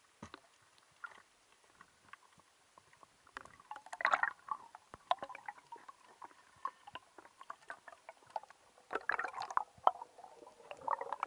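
Underwater sound picked up by a diver's camera: scattered clicks and knocks with gurgling, bubbling bursts, loudest about four seconds in and again from about nine seconds on.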